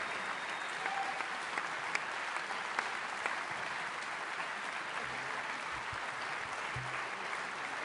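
Large audience applauding steadily, many hands clapping.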